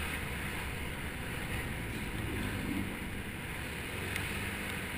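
Motor scooter being ridden along a road: a steady low engine hum under road and wind noise on the camera's microphone.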